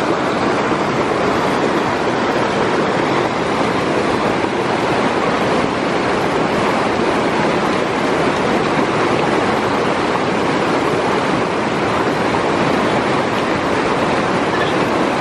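Fast-flowing, muddy, swollen mountain stream rushing over rocks: a loud, steady rush of water.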